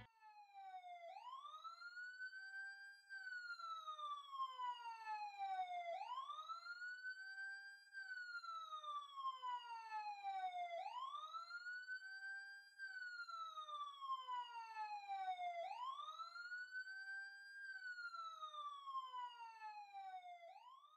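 Siren sound effect wailing, its pitch sweeping quickly up and then slowly down, each cycle about five seconds long.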